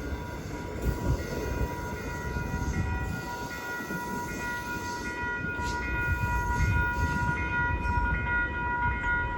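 South Shore Line electric commuter train running past, a steady low rumble with a high steady whine held over it.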